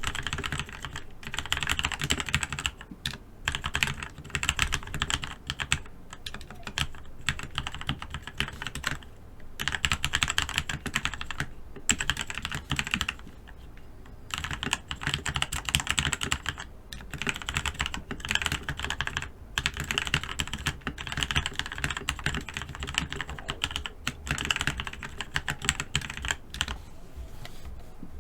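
Typing on an E-Element Z88 budget mechanical keyboard with lubed Outemu red switches, foam inside the case and lubed stabilisers: a rapid stream of key clacks in runs of a few seconds with short pauses between. The typing stops shortly before the end.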